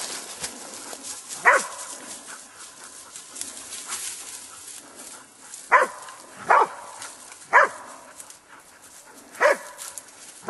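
Hunting hound barking at a wild boar held at bay in the brush: five separate single barks a second or more apart, each one dropping in pitch.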